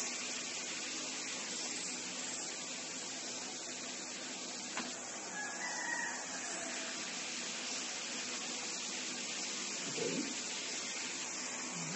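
Steady background hiss, with a single click a little before the middle and a faint drawn-out animal call about halfway through.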